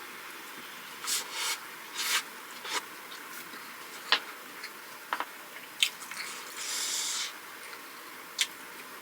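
Close-miked eating sounds: chewing and biting in short noisy bursts, with a few sharp single clicks in between.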